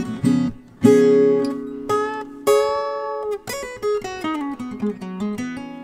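Acoustic guitar playing an instrumental fill between sung lines of a blues song: a strum, a few chords left to ring, then a run of single picked notes stepping down in pitch.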